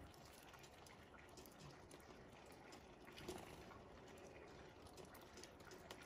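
Near silence: faint background hiss with a few scattered light ticks, one a little stronger about three seconds in.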